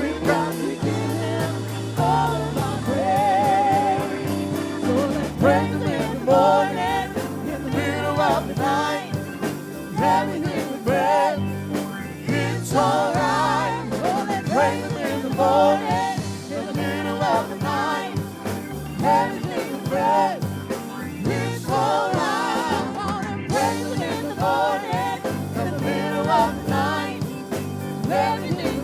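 Gospel worship music with singing over a band with bass, guitar and drums, playing steadily.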